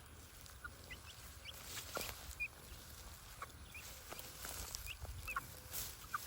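Free-range chickens clucking with frequent short, high chirps scattered throughout as they forage.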